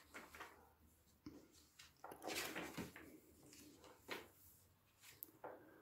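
Pages of a thick hardcover comic omnibus being turned by hand: faint, brief paper swishes and rustles, several in a row.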